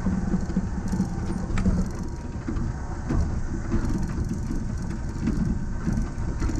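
Running noise inside the cab of a Yamaman Yukarigaoka Line rubber-tyred people mover cruising along its concrete guideway: a steady low rumble with a few short clicks and rattles.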